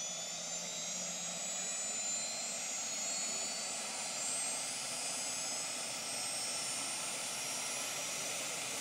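Helicopter's turbine engine running with a high whine that slowly rises in pitch, as when the engine spools up.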